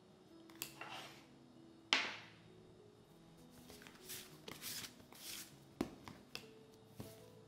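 A plastic dough scraper and hands working bun dough on a board: a sharp tap about two seconds in, then several short scraping swishes and a few light taps. Soft background music plays underneath.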